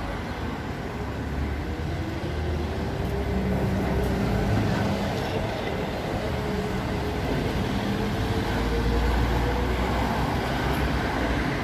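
City street traffic: a heavy vehicle running by with a low rumble and a faint whine that rises slowly through the middle of the sound.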